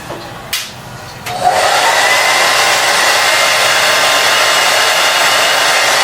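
A couple of short clicks, then a hair dryer switches on about a second and a half in and blows steadily with a faint whine, drying lace-wig adhesive along the hairline.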